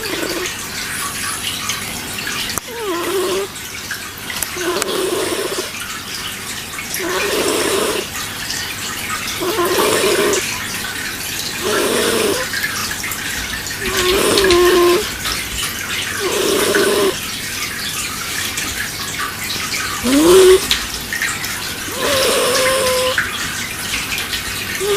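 Slow, rhythmic snoring: about ten snores, one every two to two and a half seconds with one longer pause in the middle. Each snore is a hissy breath carrying a short, wavering hum.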